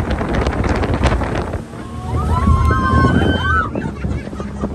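Wind buffeting the microphone over the steady low rumble of a speedboat's engine running at speed across the lake. The wind noise is loud because of the boat's speed.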